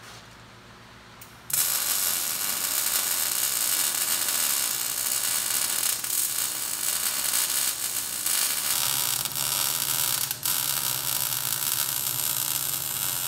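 MIG welder arc crackling steadily as a bead is laid on a steel gusset where it meets a forged axle C knuckle. The arc strikes about a second and a half in and runs on with a brief break near ten seconds.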